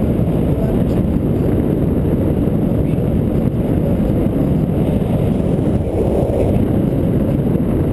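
Airflow rushing over the camera microphone of a paraglider in flight: a steady, loud low rumble.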